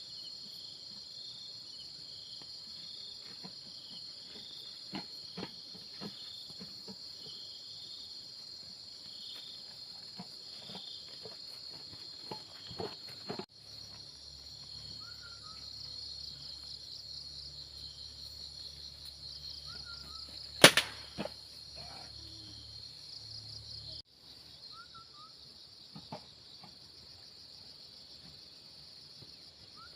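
Steady, high-pitched chorus of crickets trilling, with scattered clicks and knocks and one sharp crack about two-thirds of the way through; a few short bird chirps now and then.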